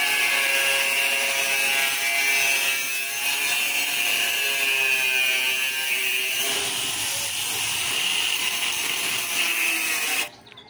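An electric power tool working galvanized steel sheet, its motor pitch wavering up and down under load over a harsh metallic hiss. It cuts off suddenly near the end.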